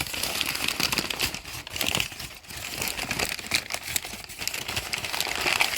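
A cardboard shipping box and its packing material being opened and handled by hand: continuous crinkling and rustling with many small scattered clicks.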